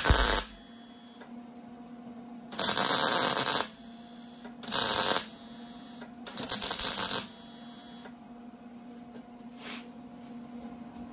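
MIG (wire-feed) welder laying four short tack welds on steel sheet, each a loud crackling burst of about half a second to a second, on metal that was not cleaned before tacking. A steady electrical hum runs underneath.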